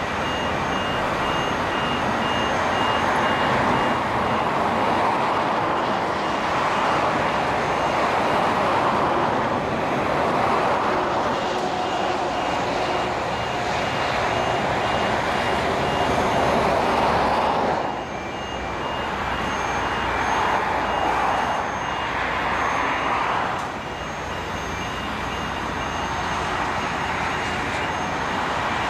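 Heavy construction machinery running steadily with a high electronic warning beeper repeating on and off, as a precast concrete bridge segment is hoisted. The machine noise drops twice in the second half.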